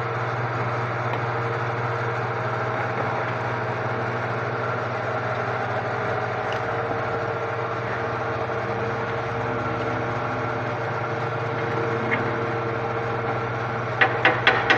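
Welding equipment running with a steady low hum and a constant crackling hiss, as in arc welding a leaf spring. Near the end come four sharp knocks in quick succession.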